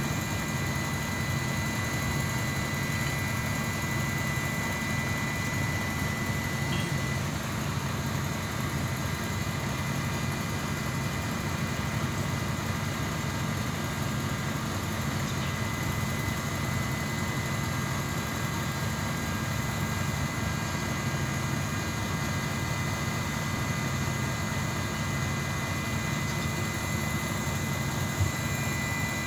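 An engine running steadily at idle, a low drone with a thin high whine above it. One short knock near the end.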